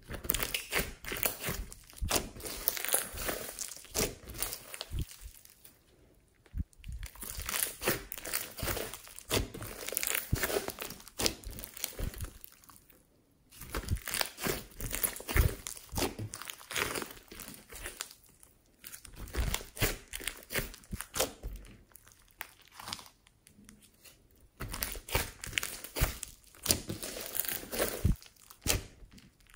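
Hands squeezing and kneading a large mass of glossy slime mixed with floam beads: dense wet crackling and popping clicks, in bouts of a few seconds broken by short pauses.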